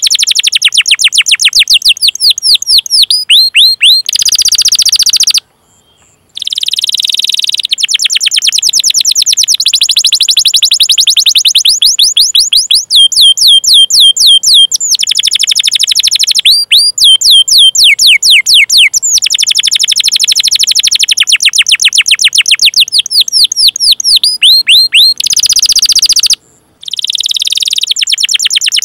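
Domestic canary singing long runs of rapid, high-pitched down-sweeping chirps and rolling trills, many notes a second, with two brief pauses.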